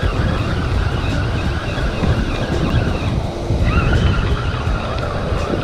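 Wind buffeting the microphone over surf, a loud, continuous rumble. Under it a spinning reel is being cranked in on a hooked kingfish, a faint steady whir that gets clearer about two-thirds of the way through.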